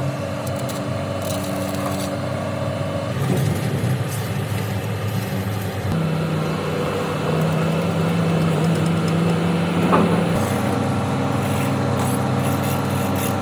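Heavy machine's engine running steadily, its pitch shifting a couple of times, with a short sharp sound about ten seconds in.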